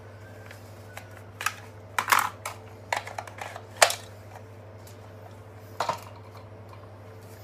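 Scattered clicks and knocks of hard plastic cordless power tools being handled and set down, over a steady low hum. There are a few clicks about a second in, a busy cluster around two to four seconds in, and a last pair near six seconds.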